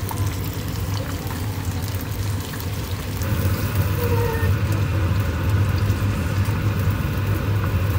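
Breadcrumb-coated chicken pieces deep-frying in a small pot of hot oil, the oil sizzling and bubbling steadily over a low hum. It grows a little louder about three seconds in.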